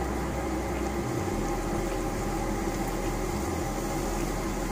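Minced garlic frying in olive oil in a pan on a lit gas burner: a steady sizzle over a low hum, with no distinct knocks.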